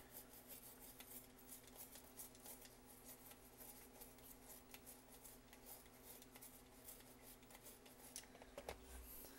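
Faint, rapid scratching of a toothbrush scrubbing the contacts of a VCR's mode control switch, sprayed with electrical contact cleaner to clear the oxidation that is suspected of making the machine eat tapes. A slightly louder knock comes near the end.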